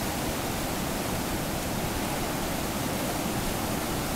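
Brown floodwater pouring over a low dam's crest and churning in the rapids below: a steady, unbroken rush of water.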